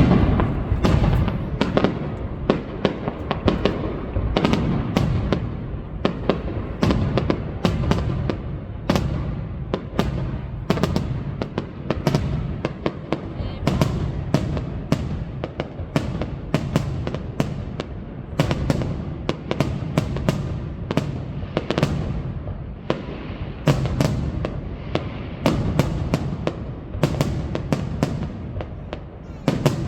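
Aerial fireworks display: shells bursting in a dense, unbroken series, several sharp bangs a second over a continuous low rumble.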